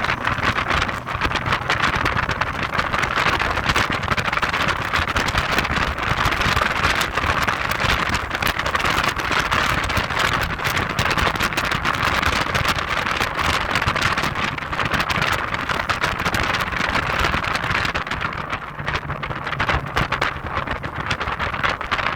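Heavy wind buffeting on the microphone in a moving Audi TT Quattro 225 roadster, with the car's road and engine noise underneath. It is steady and dips slightly a few seconds before the end.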